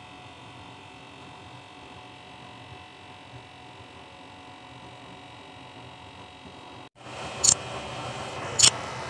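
A small electric blower runs with a steady hum, feeding air to a burning waste-oil stove burner. About seven seconds in, the sound cuts to a louder rushing hiss, and two sharp mouse-click sound effects follow about a second apart.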